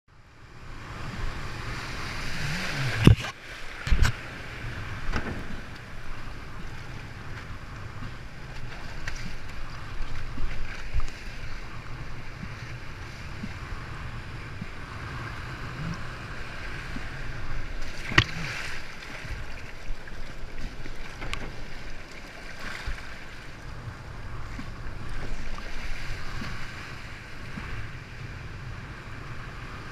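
Whitewater and breaking waves washing around a windsurf board heading out through the surf, with wind buffeting the rig-mounted camera's microphone. A few sharp knocks stand out, about three and four seconds in and again around eighteen seconds.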